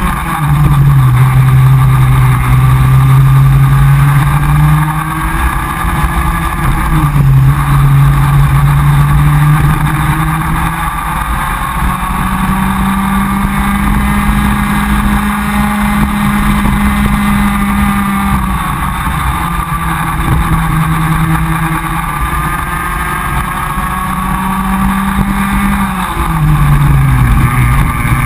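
Comer cadet kart's small two-stroke engine heard onboard at racing speed, its note climbing along the straights and dropping each time the kart slows for a corner, several times over, with wind and road noise underneath.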